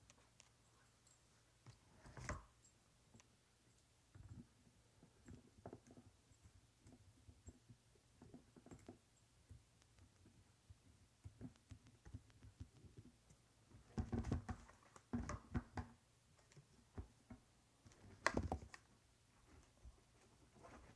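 Faint scattered clicks and knocks of a metal detector's search coil and lower shaft being handled during a coil swap, with louder clusters of knocks in the second half.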